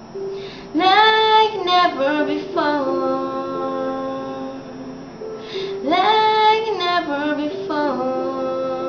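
A woman singing a slow ballad in two phrases, each gliding up, then stepping down and settling into a long held note.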